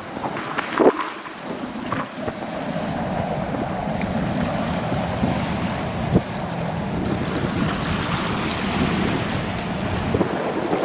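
Jetfoil high-speed ferry (a gas-turbine, waterjet-driven hydrofoil) passing at speed on its foils: a steady rushing noise of engines and water spray. Wind buffets the microphone, with a few sharp knocks near the start and about six seconds in.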